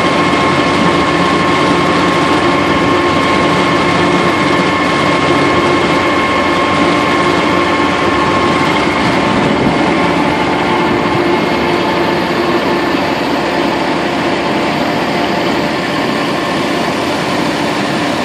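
Tractor-driven Penta 4020-SD vertical-auger feed mixer wagon running, the tractor engine and the mixer's auger drive making a loud, steady mechanical noise. A steady high whine runs through it and fades about ten seconds in.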